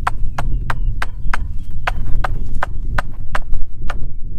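A steady rhythm of sharp clicks or knocks, about three a second, over a low rumble.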